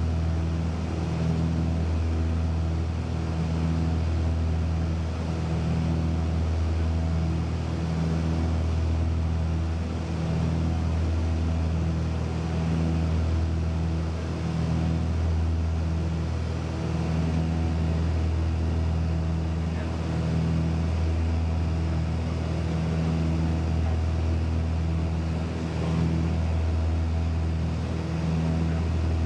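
Steady aircraft engine drone heard inside the cabin: a strong low hum with several steady tones above it, swelling and fading slightly every couple of seconds.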